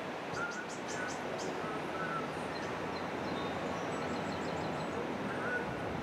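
Steady wind rushing, with small birds chirping now and then and a brief quick trill about four seconds in.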